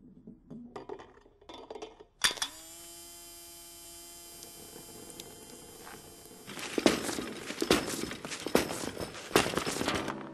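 Car parts knocking and clattering against each other in a mechanical chain reaction: a few light clicks, then a sharp strike about two seconds in that leaves a long ringing tone, then from about six and a half seconds a quick run of clattering knocks over the ringing.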